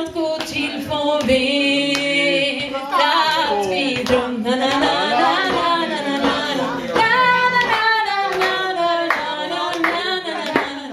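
Woman singing the close of a Swedish ballad into a microphone, drawing out long notes that bend up and down; clapping starts near the end.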